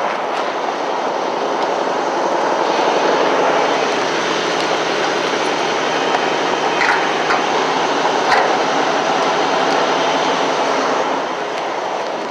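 Diesel fuel rushing from a truck-stop pump nozzle into a semi truck's fuel tank, a loud steady rush, with a couple of light knocks about midway.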